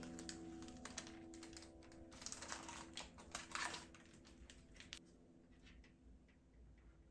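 Baking paper being peeled off the side of a chocolate sponge cake, with a run of faint, irregular crinkles and crackles that thin out after about five seconds.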